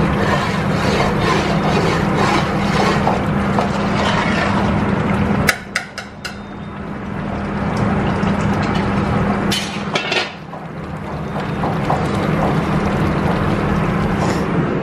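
Steady roar of a commercial kitchen's gas range and extraction, with a constant low hum, around large aluminium stockpots of curry cooking. A few metal clinks of a ladle against the pot come about five seconds in and again near ten seconds.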